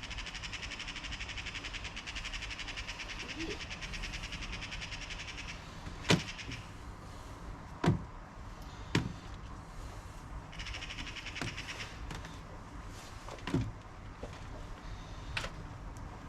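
A series of sharp knocks and thuds, six or so at uneven spacing, from handling garden containers and soil while emptying out potatoes. Behind them is a high, fast-pulsing chatter that stops about six seconds in and returns briefly later.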